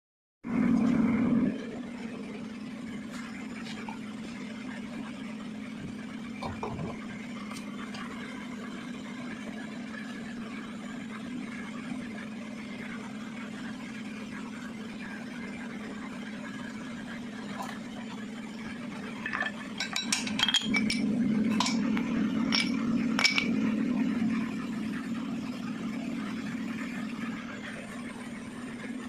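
Metal hand tools clinking against brake parts over a steady low hum, with a run of sharp clinks about two-thirds of the way through.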